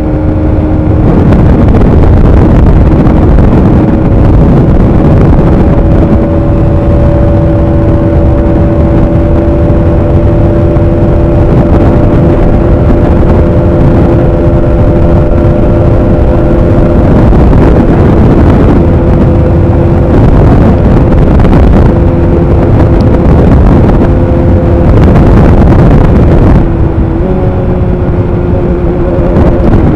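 Bajaj Pulsar 200NS single-cylinder engine running at a steady cruising pace, its pitch holding nearly constant, with a slight rise near the end. Heavy wind rumble on the microphone from riding at speed.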